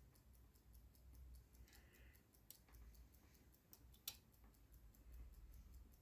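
Near silence: faint room tone with a few light clicks, the loudest about four seconds in.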